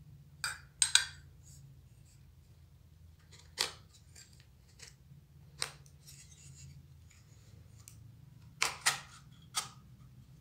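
Aluminium sunshade hood and cylindrical aluminium CCTV camera housing being handled and fitted together: a series of sharp metal clicks and clacks, some coming in quick pairs, with faint scraping between them.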